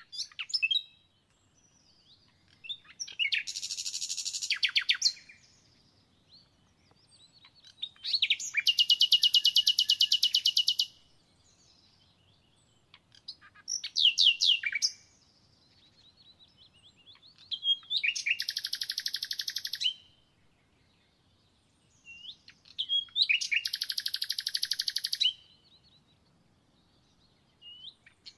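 A songbird singing: each phrase opens with a few short notes and runs into a rapid, high trill one to three seconds long, repeated five times, every four to five seconds.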